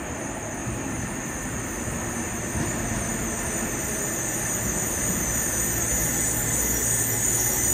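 Yokohama Municipal Subway Blue Line 3000R-type train with Mitsubishi IGBT-VVVF traction control, approaching the platform through the tunnel. Its steady rumble grows louder as it nears, with a rising high hiss near the end.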